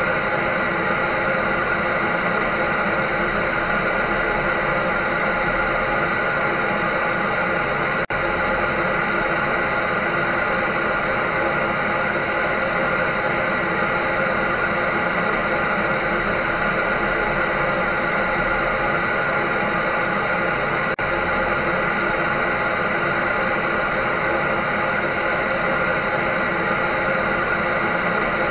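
An electric dryer running steadily: an even rushing hiss from its fan and motor with several constant whining tones in it, broken by two very brief dips about eight and twenty-one seconds in.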